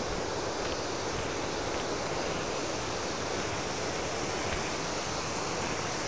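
Waterfall's rushing water: a steady, even rush.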